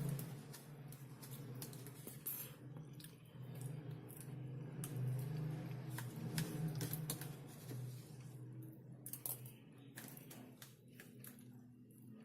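Close-miked wet mouth sounds of eating soft mashed potato: irregular smacking with many short, sharp wet clicks, over a steady low hum.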